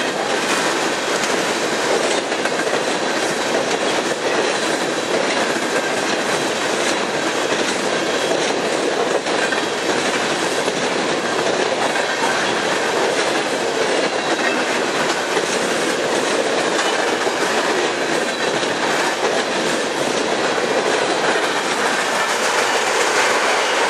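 Coal hopper cars of a freight train passing close at about 60 mph: a steady, loud rumble and clatter of steel wheels on the rails that keeps on without a break.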